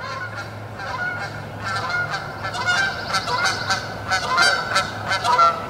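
A pair of geese flying overhead and honking over and over as they come in to land, the calls growing busier about halfway through.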